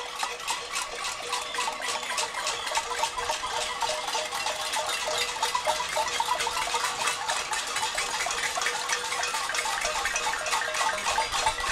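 Protest crowd banging pots and pans (a cacerolada): a dense, continuous metallic clatter with ringing, over a steady held tone.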